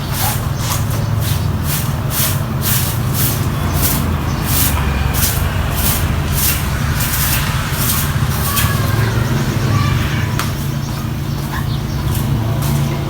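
Broom sweeping in quick swishing strokes, about three a second, over a steady low motor hum; the strokes stop about nine seconds in while the hum carries on.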